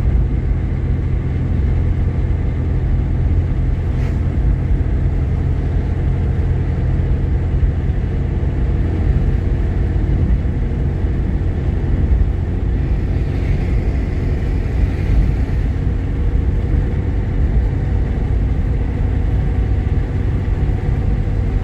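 Steady low road and engine rumble inside the cabin of a moving Jeep Grand Cherokee, with a single sharp click about four seconds in and a brief swell of hiss a little past the middle.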